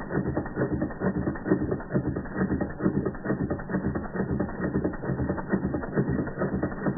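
Doll model 338/1 toy steam engine running fast under steam, with a rapid, even mechanical clatter from its cylinder, crank and linkage.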